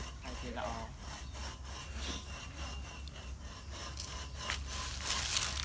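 Dry fallen leaves and twigs rustling and crunching underfoot: irregular crackles and scrapes over a steady low rumble.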